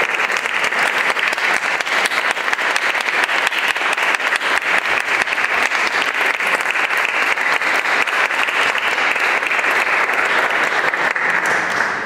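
Audience applauding steadily with many hands clapping at once, the applause dying away near the end.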